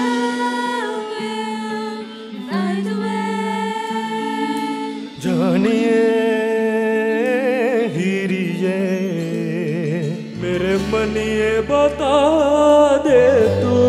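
Live song performance: a singer holds long notes with vibrato and sliding swoops over backing music, and a low bass line comes in about ten seconds in.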